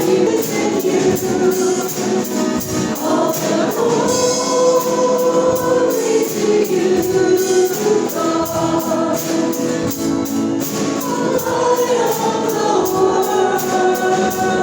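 Gospel choir music: several voices singing sustained notes together over a steady beat.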